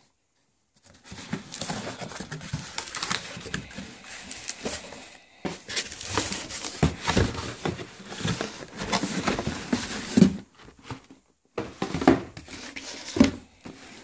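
Cardboard shipping box being opened by hand: packing tape tearing and cardboard flaps crinkling and rustling in bursts, with a few sharp knocks in the second half as the shoebox inside is handled and lifted out.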